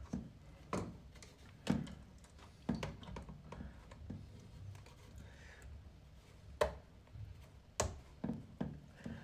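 Scattered clicks and knocks of hands working a washing machine's plastic drain pump and its fittings loose, about seven or eight separate strokes.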